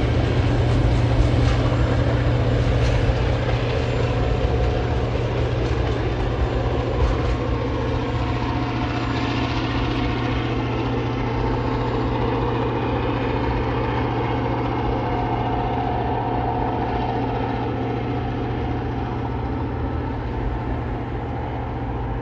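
TasRail freight train of container wagons passing and receding, with sharp wheel clicks during the first several seconds. Under them runs a steady low drone from the diesel locomotives powering up the grade, and the whole sound fades slowly.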